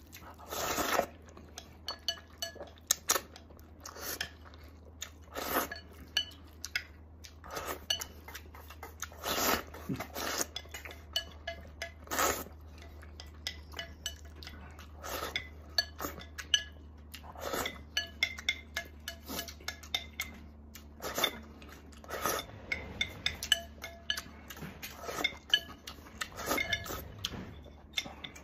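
A person eating noodles from a ceramic bowl: repeated short slurps every second or few, wooden chopsticks clicking against the bowl, and chewing in between. Near the end the bowl is tipped up to the mouth to drink the gravy.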